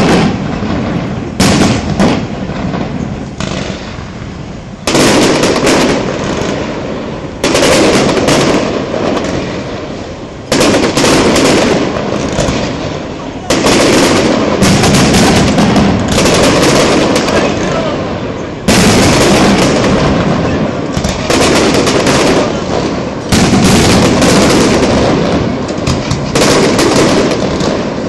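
Loud aerial firework shells bursting one after another, a bang every two to three seconds, each fading away over a second or two before the next.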